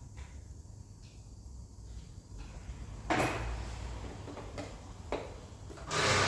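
Parts and tools being handled during an engine stripdown: a sharp knock about three seconds in and a smaller click near five seconds. A steady rushing noise with a low hum starts just before the end.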